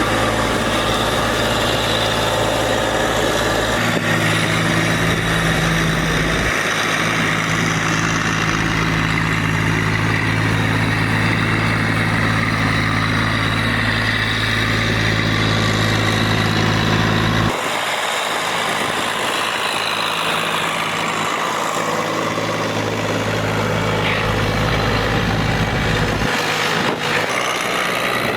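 A heavy vehicle engine running steadily under a hiss. Its low hum shifts suddenly a few times and drops away about two-thirds of the way through.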